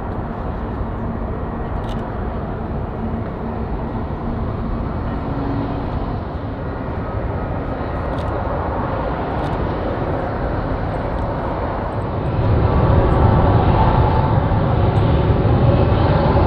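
Boeing 757 freighter's jet engines running steadily on departure, then growing louder with a heavier low rumble about twelve seconds in.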